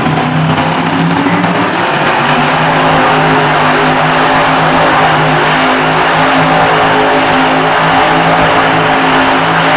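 Grave Digger monster truck's supercharged V8 engine held at high, steady revs as the truck spins donuts on the dirt, loud and unbroken.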